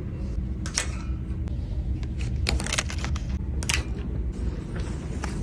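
A handful of sharp clicks and knocks, spaced unevenly, from items and containers being handled and set down while restocking a fridge, over a steady low rumble.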